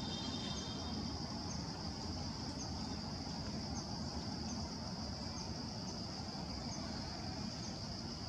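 Steady high-pitched drone of a forest insect chorus, with faint short chirps about once a second above it, over a low background rumble.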